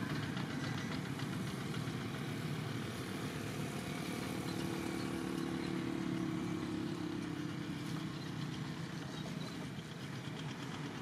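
A motor vehicle's engine running steadily, loudest midway and then fading.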